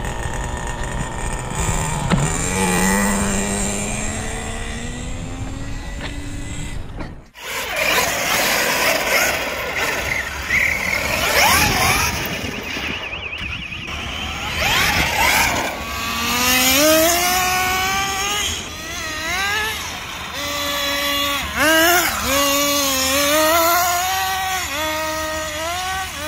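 Radio-controlled model cars driving on asphalt, their motors whining up and down in pitch as the throttle is opened and closed, again and again. The sound cuts out briefly about seven seconds in.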